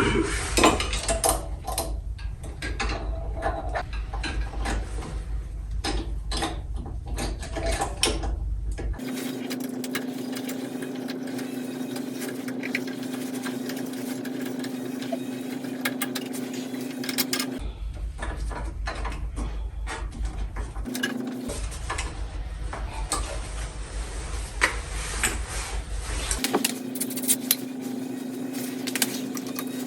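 Small metal carburetor parts being handled, with many light clicks and taps in the first part. A steady low hum starts about nine seconds in and cuts in and out a few times, with occasional clicks over it.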